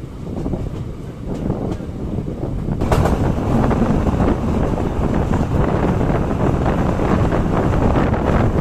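Passenger train running at speed, heard from an open coach door: wheels rumbling and clattering on the track, with wind buffeting the microphone. It gets louder about three seconds in and stays loud.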